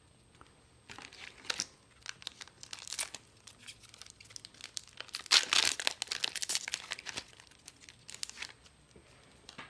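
A foil booster-pack wrapper crinkling and being torn open, with a run of rustles and crackles that is loudest and densest about five to six seconds in.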